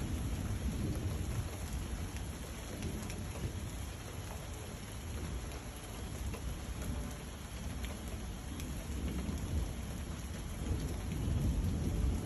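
Thunderstorm: steady rain falling with a low rumble of thunder. The rumble eases in the middle and swells again near the end.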